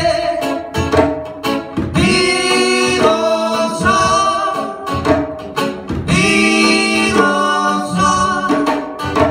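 Live acoustic band: sung vocals in long held notes over acoustic guitar and djembe hand drum.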